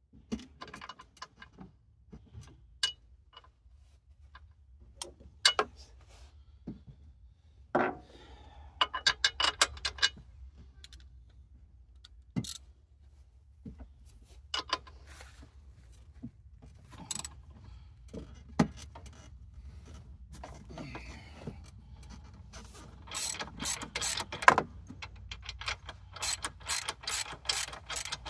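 Hand socket ratchet clicking in quick runs as it turns the bolts of a winch's hawse fairlead, with scattered knocks and clinks of the tool against metal. The runs of rapid clicks come about a third of the way in and again over the last few seconds.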